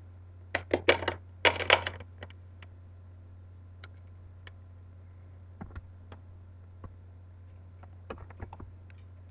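Sharp plastic clicks and rattles from handling a nebulizer kit and its power plug: a quick run of clicks about half a second in, a second cluster just after, scattered light taps, and a few more clicks near the end, over a steady low hum.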